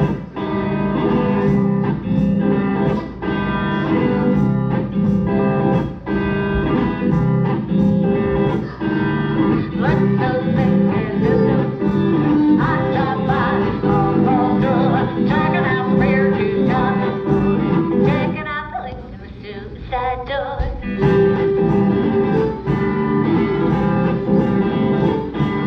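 Live violin and guitar duo playing, with a voice singing over them. The music drops to a quieter, thinner stretch about three-quarters through, then comes back in full.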